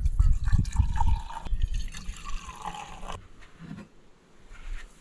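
Coffee poured from a glass carafe into a mug, the pitch of the pour shifting as the mug fills, stopping about three seconds in. A low rumble sounds under the first second.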